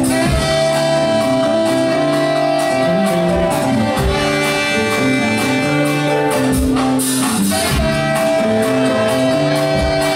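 Live funk band playing: long held saxophone notes over a bass line, drums, guitar and keyboards.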